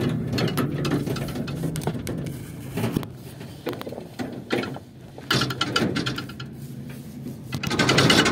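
A vehicle's engine running at a steady low hum, with knocks and rattles over the ride, heard from inside the vehicle.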